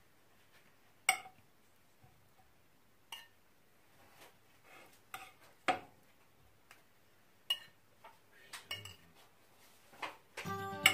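Cutlery clinking against dishes: about eight separate sharp clinks spread out with quiet between them, the loudest about a second in and again near the middle. Music starts just before the end.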